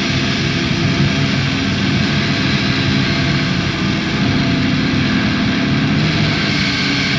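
Drone/noise music: a steady wall of dense, hissing noise over held low droning tones, the low tones shifting slightly about four and six seconds in.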